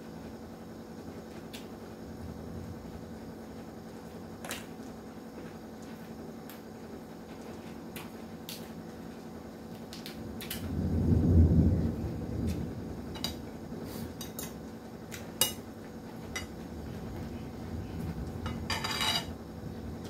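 Eating sounds at a meal table: light clicks of cutlery and dishes scattered throughout. About halfway through there is a louder, low, muffled rumble lasting a second or two, and near the end a short crackle.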